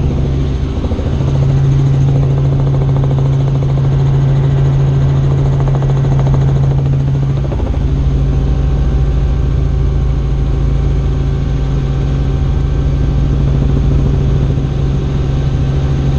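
Helicopter in flight: the rotor and engine run as a loud, steady low drone with a fast rotor beat.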